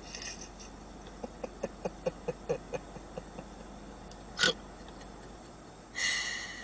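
A woman's suppressed laughter: a quick run of short giggle pulses, about five a second, then a sharp snort-like catch of breath and a hissing breath out near the end.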